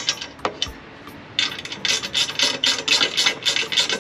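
Ratcheting wrench tightening a nylon lock nut: a couple of clicks, then from about a second and a half in a quick rasping run of ratchet strokes, about five a second.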